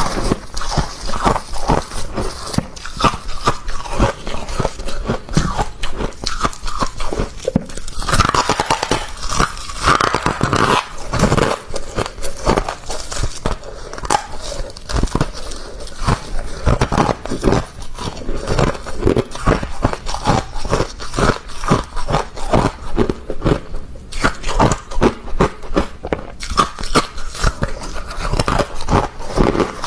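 Close-up crunching and chewing of soft, crispy freezer frost, a rapid uneven run of crisp crunches several times a second.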